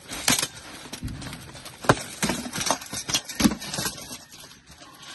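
Armoured sword-and-shield sparring: a quick run of about seven sharp clacks as weapon blows land on wooden shields and steel plate armour, the loudest about two seconds in, dying away in the last second.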